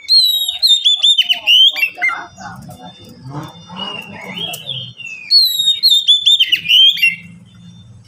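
Oriental magpie-robin singing: two loud bursts of quick whistled notes that sweep up and down, one at the start and one about five seconds in, with softer, falling calls between them.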